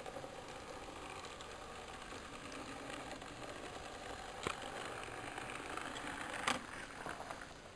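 Small electric motor and gears of a GN15 model mine locomotive running with a faint, steady mechanical whirr. Two sharp clicks come through, about halfway and again near the end.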